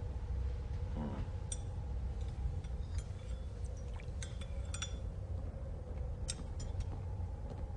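Steady low rumble of an ocean liner under way, with a faint hum, and scattered light clinks and clicks from about a second and a half in.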